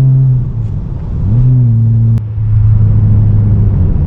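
Tuned BMW 335i's twin-turbo 3.0-litre inline-six with a full exhaust, heard while the car is driven. The steady engine drone falls away about half a second in, then the revs rise and settle. A sharp click and a short dip come just after the middle before the drone returns.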